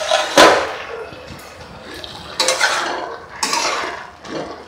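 A steel lid clanks as it is lifted off a stainless steel kadai about half a second in, then a metal spatula scrapes and stirs through the simmering greens and potatoes in the pan, twice.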